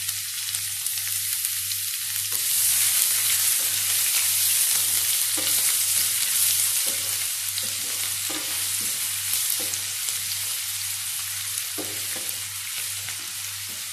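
Chopped onion sizzling in hot coconut oil with fenugreek and mustard seeds in a frying pan, a steady hiss. From about two seconds in, a slotted spatula stirs it with soft scraping taps against the pan.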